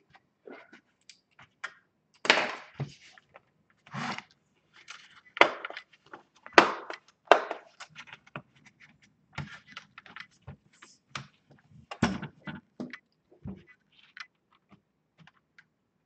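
Plastic laptop casing being handled: irregular clicks and knocks as the palm rest is pressed and snapped into place and the laptop is turned over on the table, with a few heavier knocks among lighter clicks.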